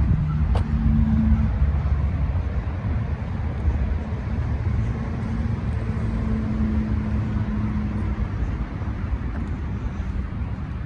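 Low, steady rumble of road traffic, with a motor vehicle's engine hum rising out of it twice, and a single sharp click about half a second in.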